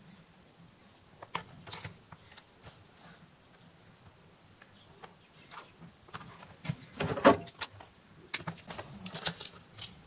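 Small clicks and taps of two rotary potentiometers, a thin wire and a pen-style soldering iron being handled while the wire is soldered to the pot terminals. The clicks are scattered, with the loudest cluster about seven seconds in.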